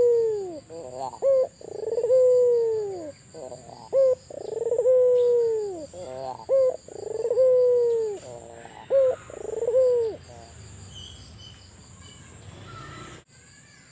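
White (albino) puter dove, a domestic collared dove, cooing repeatedly. Each phrase is a couple of short notes and a quick stutter, then a long coo that falls in pitch, about every two and a half seconds. The cooing stops about ten seconds in, leaving only faint chirps.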